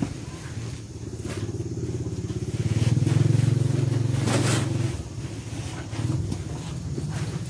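A motor vehicle engine running steadily, getting louder for about two seconds near the middle before settling back.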